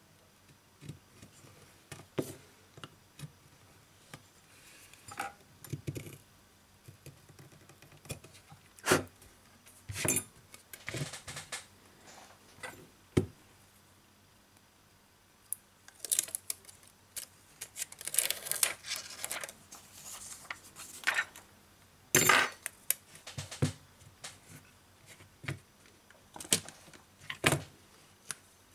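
Scattered clicks, taps and brief scraping rustles of a smartphone repair by hand: a metal pry tool clicking against the phone's plastic frame as the display module is lifted out, and the parts being handled. The louder scrapes come in a cluster about two-thirds of the way through.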